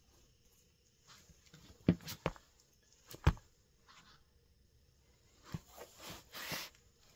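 Gum-rubber soles of New Balance 574 sneakers tapping and scuffing on a cork floor: a few sharp taps about two and three seconds in, the loudest near the middle, then a rough shuffling scuff near the end.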